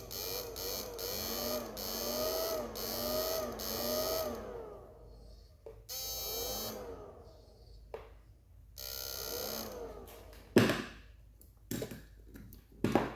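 Repaired electric fish shocker running on its final test, giving a wavering electrical buzz with a hissy edge that swoops up and down in pitch. It comes in three bursts, a long one at first and two short ones, then sharp clicks near the end.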